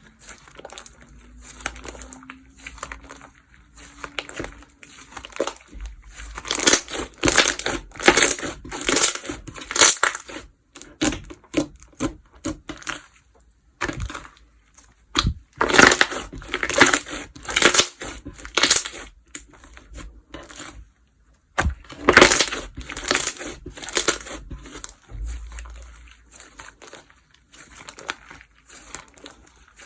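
Slime being squeezed, pressed and stretched by hand, making dense sticky clicks in bursts of a few seconds with quieter stretches between.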